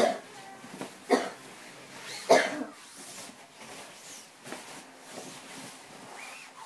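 A person's short, sharp bursts of breath, three of them about a second apart, the last the loudest, while straining to flip over in a hammock.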